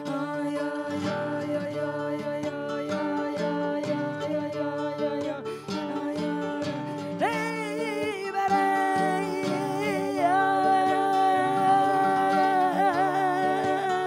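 Flamenco song: a nylon-string flamenco guitar plucked under women's voices holding long notes. About seven seconds in a stronger voice comes in with a rising slide and holds wavering, ornamented notes.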